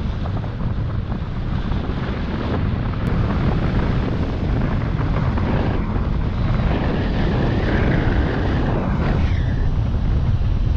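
Wind buffeting the microphone of a paraglider pilot's camera in flight: a steady rushing of airflow that grows a little louder about three seconds in.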